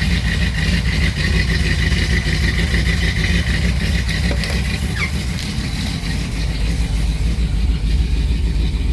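1965 Ford Thunderbird's V8 idling steadily while still cold, not yet up to temperature. A steady high whine sits above the engine note from the power steering pump, which is still a little noisy; the whine fades about five to six seconds in.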